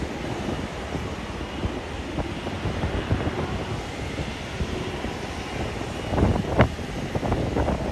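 Jet airliner engines heard at a distance, a steady noise with a faint high whine, under wind buffeting on the microphone that gusts hardest about six seconds in.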